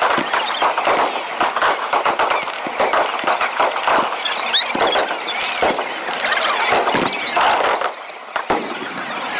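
Aerial firework shells going off in a rapid barrage: dense, overlapping bangs and crackling, with many short, high squealing whistles mixed in.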